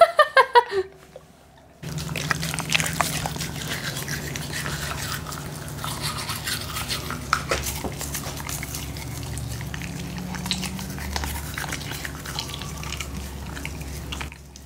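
Toothbrush bristles scrubbing a Labrador's teeth, a run of small, wet, scratchy clicks and rustles, over a steady low hum.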